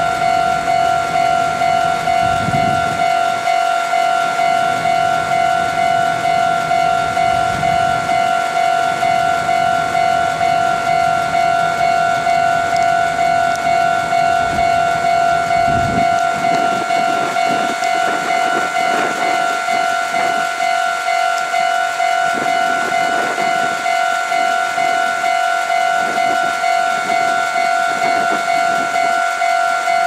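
Japanese railway level-crossing alarm ringing a fast, evenly repeated electronic 'kan-kan' tone at one steady pitch, the signal that the crossing is closed for an approaching train.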